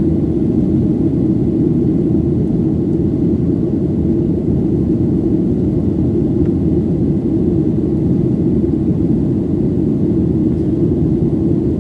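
Steady low roar inside the cabin of a Boeing 737-800 climbing out after takeoff: the CFM56-7B jet engines and rushing air, with no change in level.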